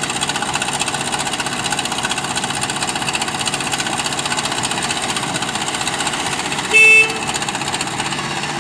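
JCB backhoe loader's diesel engine running steadily under work as the backhoe arm swings. A short vehicle horn beep sounds once about seven seconds in, louder than the engine.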